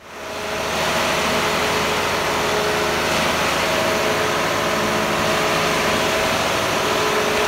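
Concrete mixer truck running at a steady engine speed, a loud, even mechanical noise with a fixed hum.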